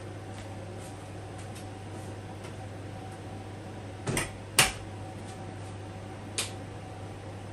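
A steady low hum, with two sharp knocks in quick succession about four seconds in and another about two seconds later, from things being handled on a kitchen worktop.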